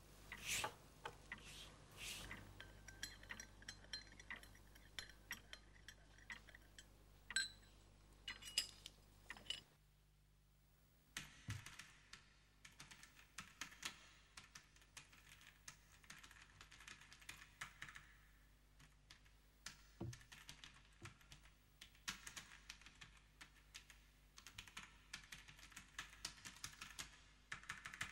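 Faint, irregular small clicks and taps, with a brief break about ten seconds in.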